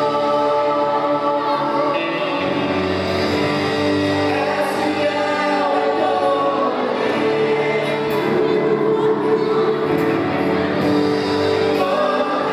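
Christian worship music with a group of voices singing together over sustained instrumental accompaniment.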